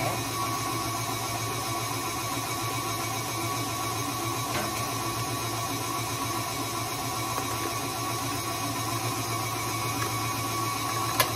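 KitchenAid Artisan stand mixer running steadily, its beater turning through thick cream cheese and cookie butter frosting in a stainless steel bowl. A single sharp click shortly before the end.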